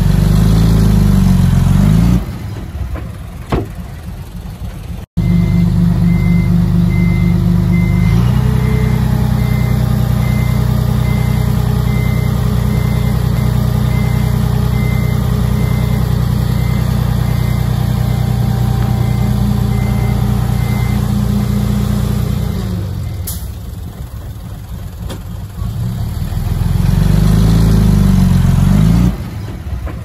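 Heavy diesel earthmoving machinery running steadily, rising and falling in pitch near the start and again near the end. In the middle a reversing alarm beeps evenly for about thirteen seconds, roughly one and a half beeps a second. The sound cuts out for an instant about five seconds in.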